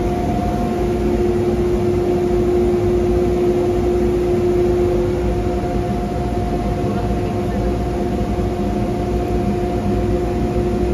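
ShopBot CNC router running, with a steady machine hum made of two held tones over a low rumble. The lower tone fades about halfway through.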